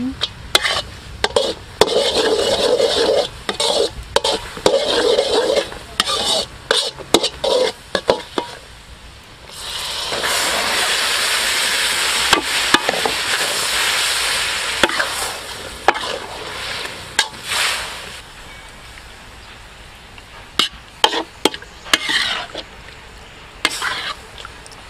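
Metal spatula scraping and clinking against an aluminium wok while brown syrup bubbles in it. About ten seconds in, a loud sizzle starts suddenly as raw pig stomachs go into the hot syrup, then dies down over several seconds to a low frying hiss under more spatula clinks as they are stirred.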